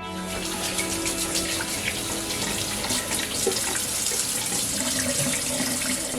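Kitchen tap running, water splashing into a sink.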